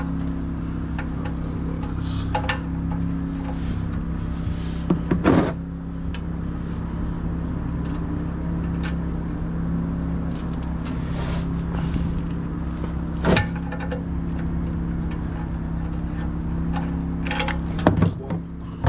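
Wrench work on a car's oil pan drain bolt: scattered clicks and metal knocks, with louder ones about five, thirteen and eighteen seconds in, over a steady low hum.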